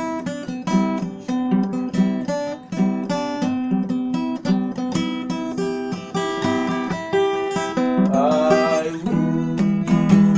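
Acoustic guitar playing a melody over plucked chords in the key of F. About eight seconds in, a single note wavers and bends for about a second.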